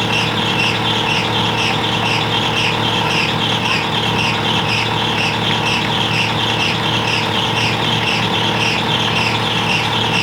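Concrete mixer's engine running steadily, with a high rasping pulse repeating about three times a second.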